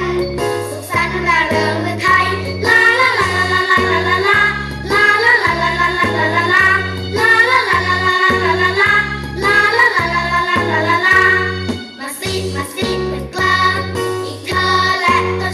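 Thai children's dance song playing: a sung melody over a bouncing, steady bass line.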